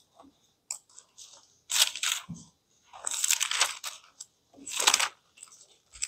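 Bible pages being turned and rustled close to a lectern microphone: several crisp paper swishes, irregular, about a second apart.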